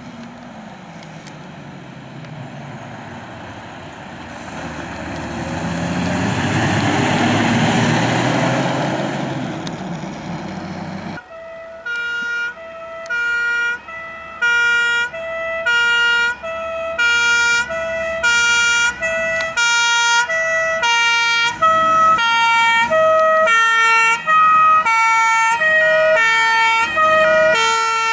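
A fire-service pickup towing a boat trailer drives past, its engine and tyre noise swelling and fading over about ten seconds. About eleven seconds in, a German two-tone emergency siren (Martinshorn) starts, switching between a high and a low note every second or less and growing louder as a fire-service truck approaches.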